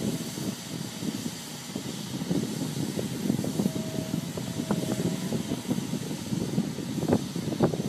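Walking excavator working its bucket in gravel: engine running with a dense crunching and scraping, a few sharp clanks near the end, and a brief high whine around the middle.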